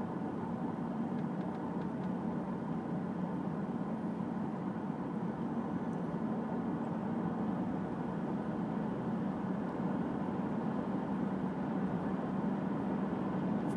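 2007 Toyota Camry cruising at a steady speed, heard from inside the cabin: a constant hum of engine and road noise with no change in revs.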